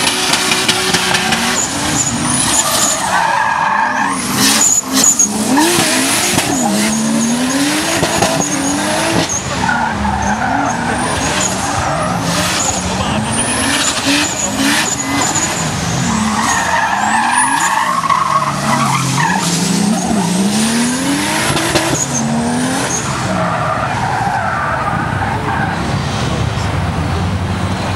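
Drift car sliding in circles on paving, its engine revving up and falling back again and again while the tyres squeal and screech in long slides, with sharp short cracks scattered through.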